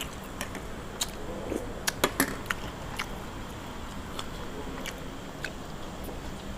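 Eating sounds from a meal of boiled frogs: scattered short clicks and crunches of chewing, with the loudest few coming close together about two seconds in.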